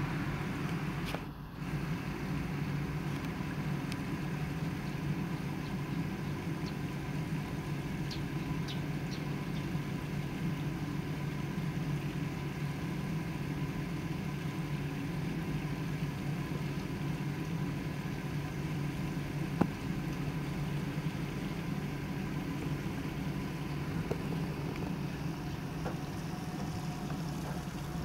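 Steady low mechanical hum, like a motor running, with a single sharp click about twenty seconds in.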